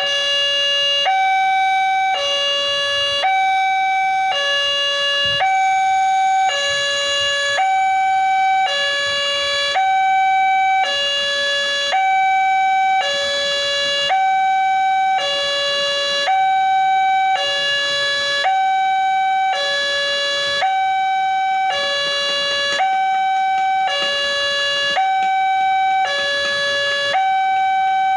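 Railway level-crossing warning alarm sounding from the loudspeaker on the crossing signal post: an electronic two-tone call, a higher and a lower tone alternating about once a second, steady and unbroken. It signals an approaching train while the barrier is down and the red lights flash.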